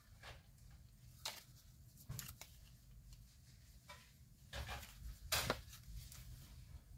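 Paper journaling cards being handled and set down: a few scattered soft rustles and light taps, the loudest about five and a half seconds in, over a low steady room hum.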